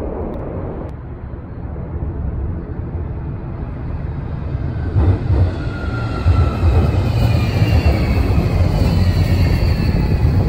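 Jet airliner rumbling overhead. About five seconds in, a Glattalbahn low-floor electric tram comes up and passes close by: wheels running on the rails and a motor whine falling slowly in pitch, louder as it passes.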